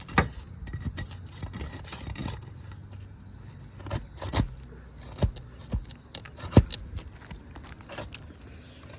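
Roofing nails being worked out from under lifted asphalt shingles: scattered sharp metal clicks, knocks and scrapes from the tool and nails, the loudest about six and a half seconds in.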